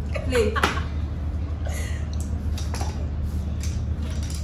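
Steady low hum of room noise, with a short snatch of a voice at the start and a few faint clicks.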